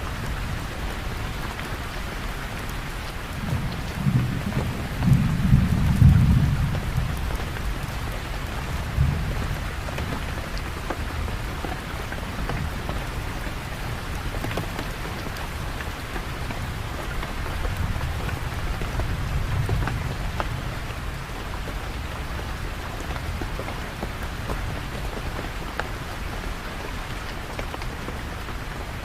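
Steady rain falling, with low rolls of thunder: a loud rumble a few seconds in that peaks around six seconds, a short one just after, and a softer, distant-sounding roll about two-thirds of the way through.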